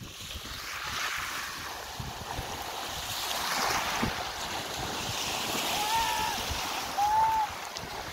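Small waves washing in and breaking on a shingle beach, a steady surf wash that swells and ebbs. About six and seven seconds in, two short high cries rise and fall.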